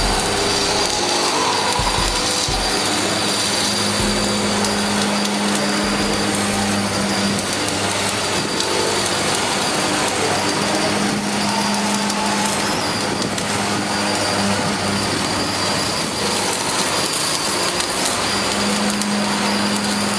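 Electric arc welding: the arc's steady crackling hiss, with a steady low hum underneath.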